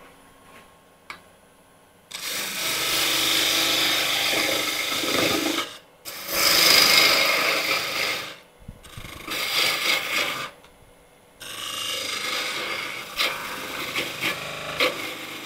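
Parting tool cutting into spinning wood on a lathe, parting down the end of a turned wooden mallet: four rough, scraping cuts of a few seconds each with short pauses between, the second the loudest.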